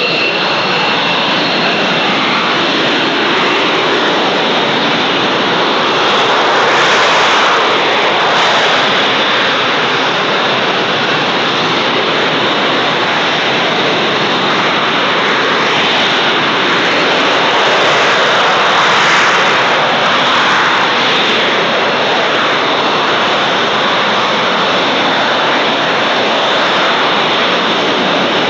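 Panavia Tornado IDS jet engines (twin Turbo-Union RB199 turbofans) running loud and steady, swelling slightly twice.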